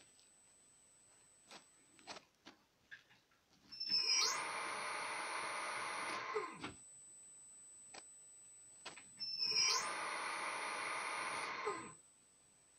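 A 0.75 kW three-phase induction motor fed by a Yaskawa V1000 inverter is started twice. Each time its electrical whine rises as the drive ramps it up to speed. It runs steadily for about two seconds, then the pitch falls and the sound cuts off as it is DC-braked to a stop. A faint high-pitched whine from the inverter continues between the runs, and a few faint clicks come before the first start.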